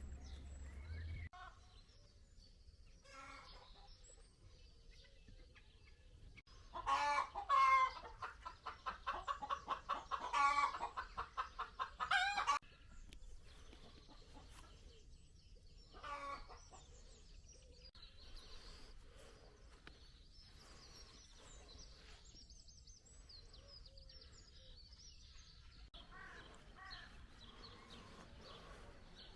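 Chickens calling: a loud run of rapid clucking and cackling calls starts about six seconds in and lasts around six seconds. A shorter call follows a few seconds later, with quieter clucks in the background.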